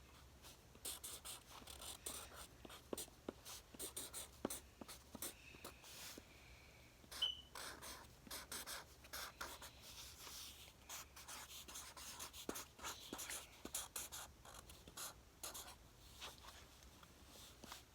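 Faint scratchy strokes of drawing on paper, in quick runs with short pauses, with a brief high tone about seven seconds in.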